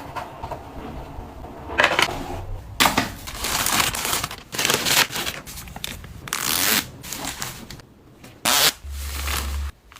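Plastic packaging being handled: a run of irregular crinkling and rustling, with a few sharp clicks and knocks.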